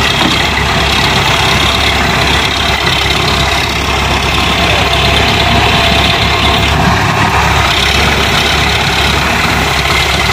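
Diesel tractor engines running steadily under load as an Eicher 480 pulls, by chain, a Sonalika tractor stuck in mud.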